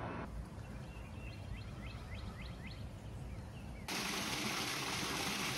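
A bird sings a quick run of about eight short notes over quiet outdoor background noise. About four seconds in, the sound cuts abruptly to a louder, steady rush of running water.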